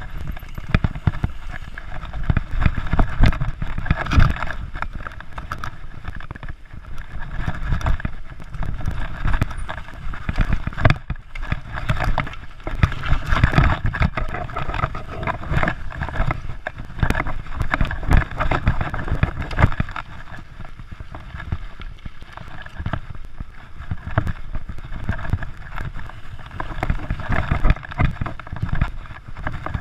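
Mountain bike ridden along a rough dirt singletrack, heard close up: a continuous rumble of tyres on the dirt with many rattling knocks and jolts from the bike over bumps.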